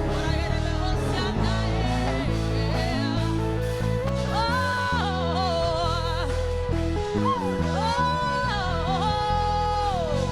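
Live worship music: a singer holds long, wavering notes and slides between them over sustained chords and a steady bass.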